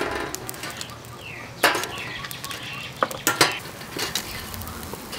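Metal tongs clacking against scallop shells and the wire grill rack, several sharp clacks over a faint sizzle of scallops grilling in their half-shells with glass noodles.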